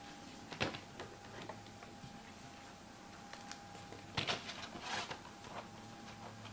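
Scattered light clicks and crinkles of handling as foil trading-card packs are moved and set down on a table, the loudest cluster about four seconds in, over a faint steady hum.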